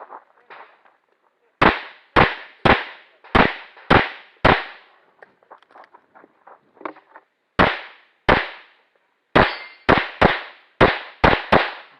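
Pistol firing rapid shots: a string of six about half a second apart, a pause of about three seconds, a pair, then six more in quick succession, with fainter pops in between.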